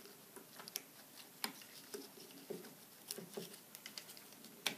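Faint, scattered clicks and taps of small batteries and a plastic battery holder being handled and slid into a plastic housing, with one sharper click near the end.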